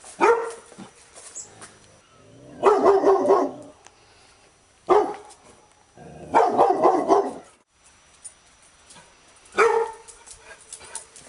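Labrador retriever barking in five bouts: a single sharp bark at the start, about halfway and near the end, with longer runs of rapid barks about three seconds in and about six and a half seconds in.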